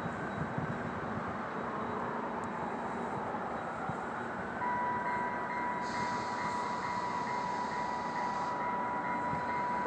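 EMD F59PH diesel locomotive and its commuter train pulling out, a steady rumble of engine and rolling wheels. About halfway through, a steady high tone sets in and holds.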